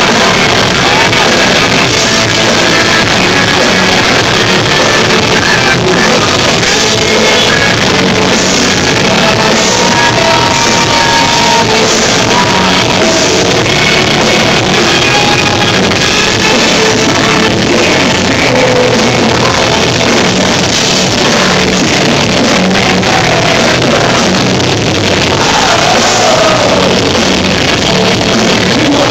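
Live rock band playing loudly with distorted guitars, drums and a singer, recorded through a phone's microphone so the sound is distorted and harsh.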